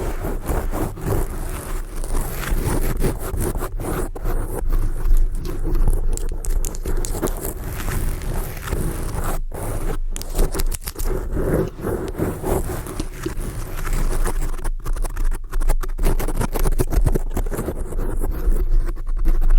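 Fingernails scratching on a surface in a continuous run of strokes, with a few brief pauses.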